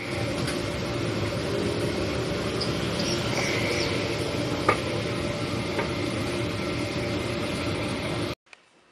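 Steady street ambience at a food stall: a continuous noisy hum with a few faint clicks and knocks. It cuts off suddenly near the end.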